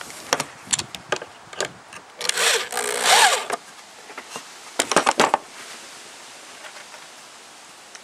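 Handling noise from a gloved hand on the camera: a string of light knocks and clicks, a loud rubbing scrape of about a second and a half in the middle, then a quick cluster of knocks about five seconds in.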